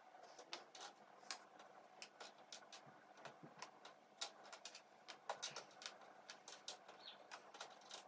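Jigsaw puzzle pieces clicking and tapping on a tabletop as a hand picks them out of a pile and sets them down: many quiet, irregular small clicks.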